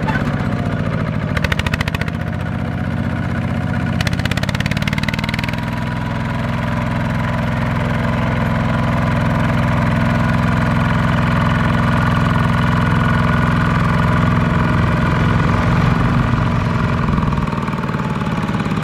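Single-cylinder diesel engine of a Kubota walking tractor chugging steadily while it pulls a trailer loaded with rice sacks across a field. The pitch rises a little about four seconds in, and there are two short spells of fast rattling, about a second and a half in and again around four seconds in.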